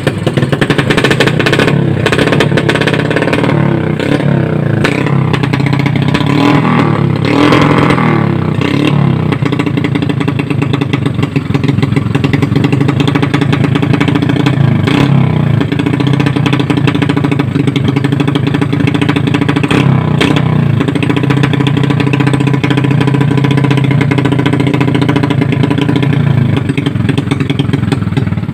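Underbone motorcycle engine running through a freshly fitted Daeng aftermarket exhaust pipe, idling with the throttle blipped several times so the revs rise and fall, most of it in the first ten seconds. It is a sound check of the new pipe, listening for exhaust leaks.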